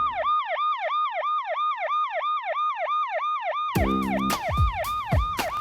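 Emergency vehicle siren yelping, its pitch sweeping rapidly up and down about four times a second. Sharp drum-like hits and low chords come in about two-thirds of the way through.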